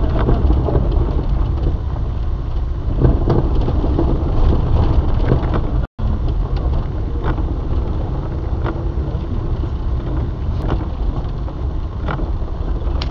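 Maruti 800 driving on wet, rough streets, heard through a dashcam inside the car: a steady low rumble of engine and road noise with occasional sharp knocks. The sound cuts out for an instant about six seconds in.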